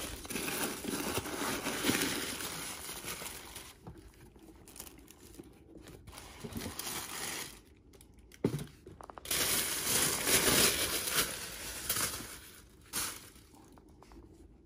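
Tissue paper and a cloth shoe bag rustling and crinkling as leather boots are lifted out of a shoebox, in several spells of a few seconds each, with a couple of short knocks in between.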